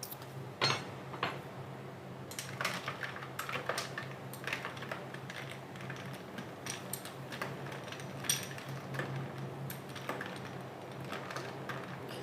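Irregular light clicks and clinks of kitchen items being handled, a dozen or so spread unevenly, over a steady low hum.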